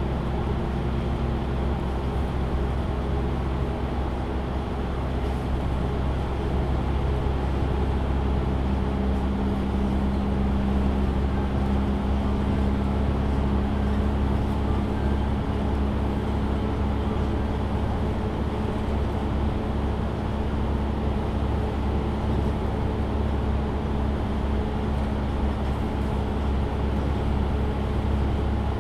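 MAN Lion's City A37 city bus driving, its diesel engine and drivetrain heard from inside as a steady drone. The engine tone strengthens from about eight seconds in.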